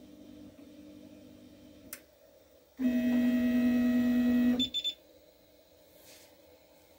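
Artillery Sidewinder X1 3D printer's stepper motors running: a faint steady whine, a sharp click about two seconds in, then a loud steady whine for nearly two seconds as the bed travels forward. It ends in a short double beep from the printer's buzzer as the automatic bed-leveling run finishes.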